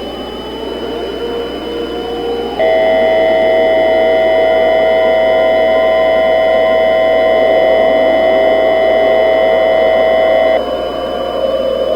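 A loud, steady two-tone electronic alert signal of the emergency-broadcast kind comes in a few seconds in, holds for about eight seconds and cuts off. Under it is a low droning background with slowly rising tones.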